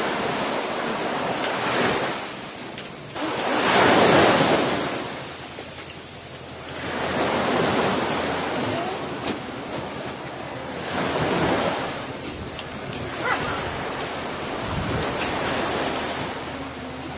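Gusty wind rushing over the microphone, a noise that swells and fades every three to four seconds, loudest about four seconds in.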